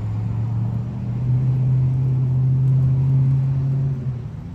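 A loud, low rumble with a steady hum in it that swells about a second in, rises slightly in pitch, and dies away near the end.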